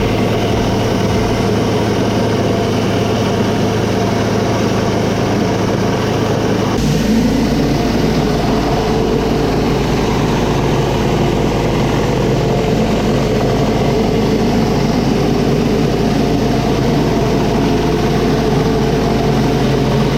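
Pressure washer engine running steadily under the hiss of the high-pressure water spray. About seven seconds in, the sound changes and a deeper hum comes in.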